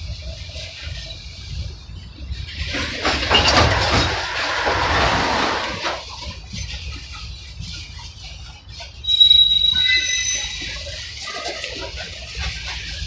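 Freight train of open-top hopper cars rolling past, wheels rumbling steadily on the rail. A louder rushing, grinding stretch comes about three seconds in, and a high-pitched wheel squeal starts around nine seconds.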